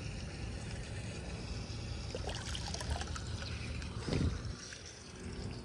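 Floodwater swirling and draining into a partly cleared storm drain, with small splashes and a louder gurgle about four seconds in as air bubbles up.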